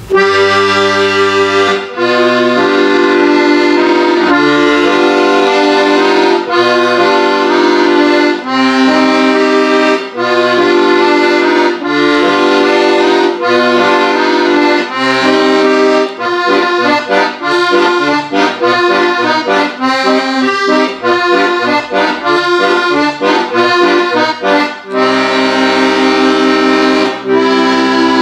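Piano accordion played solo: a tune over held chords and bass notes, switching to quick, short detached notes about halfway through, then back to held chords near the end.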